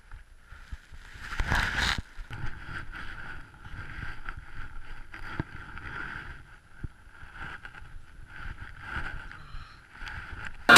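Snow scuffing and rustling against the camera as a fallen skier thrashes about in deep powder snow, with a louder scuffle about one and a half seconds in.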